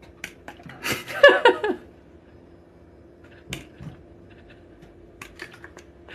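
A handheld plastic spray bottle squirting at a cat several times, each a short sharp spray, with a short wavering cry about a second in.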